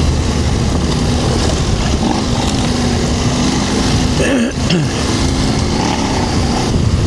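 Motorcycle engine running under way on a dirt trail, with a brief drop and pick-up in revs about four and a half seconds in, like a gear change.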